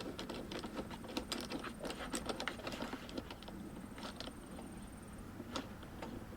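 Irregular small clicks and ticks of hose fittings being handled and screwed together by hand, denser in the first half and sparser toward the end.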